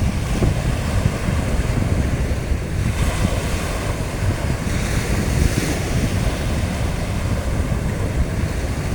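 Surf breaking and washing up a beach, with wind buffeting the microphone. The hiss of a wave's wash swells about five seconds in.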